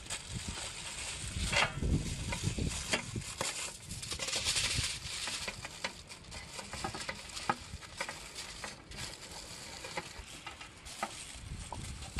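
Aluminium foil crinkling irregularly as it is folded and pressed by hand into a wrapped parcel.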